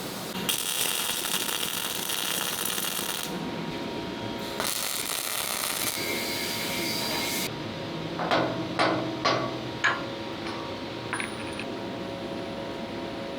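Welding on the KV-1S tank's cast armour turret: two bursts of harsh crackling hiss, each a few seconds long. A quick run of about five sharp knocks follows.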